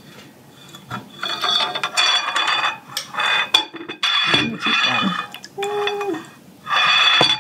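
Vinegar brine splashing out of a tipped glass canning jar through the fingers into a bowl, in three spurts with pauses between.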